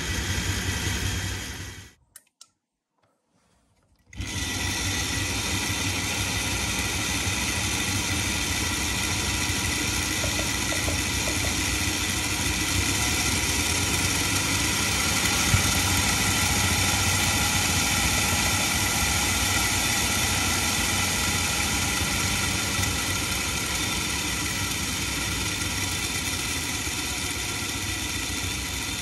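Hornby Dublo three-rail model steam locomotive running on a rolling road: its electric motor, gears and driving wheels spinning on ball-bearing rollers make a steady whirring whine. It cuts out about two seconds in and starts up again about two seconds later.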